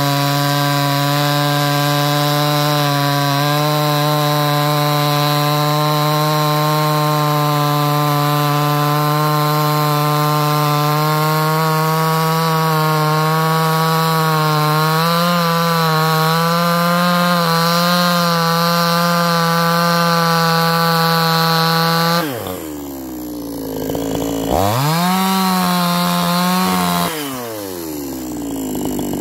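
Cheap Chinese-made two-stroke chainsaw at full throttle, cutting through a large log with a steady pitch. About 22 seconds in the throttle is released and the engine drops toward idle; it is revved once about two seconds later, then falls back to idle near the end.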